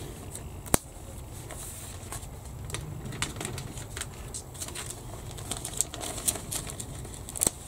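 Clear plastic bag crinkling and rustling as paper decal sheets are handled and slid in and out of it, with scattered sharp clicks and a single sharp tick about three-quarters of a second in.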